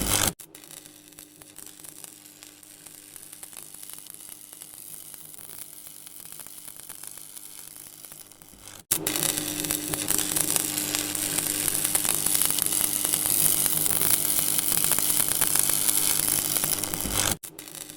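Electric buzzing and crackling sound effect: a steady electrical hum under sizzling static. It is quieter at first, jumps suddenly to a loud sizzling buzz about halfway through, and drops back abruptly near the end.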